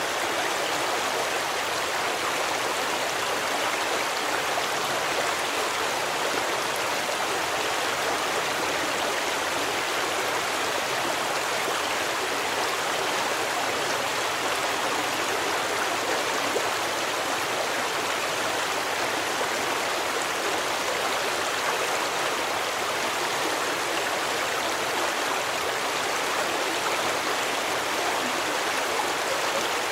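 A stream of running water flowing steadily, an even rush with no breaks or changes.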